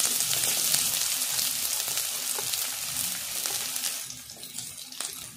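Sliced onions sizzling in hot oil in a kadai, just after going into the pan. The sizzle is a dense, steady hiss that softens about four seconds in.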